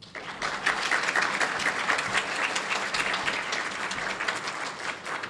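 Audience applause: many hands clapping, starting abruptly and easing off slightly toward the end.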